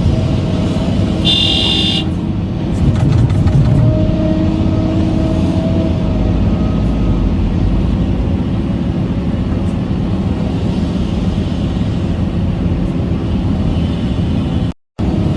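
Vehicle engine running steadily, with a short high toot about one and a half seconds in. The sound cuts out for a moment near the end.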